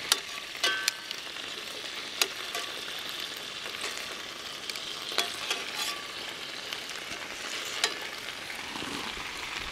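Spare ribs frying in hot garlic oil over medium heat: a steady sizzling hiss with sharp pops of spattering oil every few seconds.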